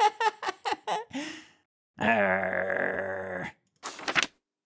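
Voice-acted cartoon laughter in a quick run of short 'ha ha' bursts, then one long, steady, drawn-out annoyed groan, with a couple of short breathy sounds near the end.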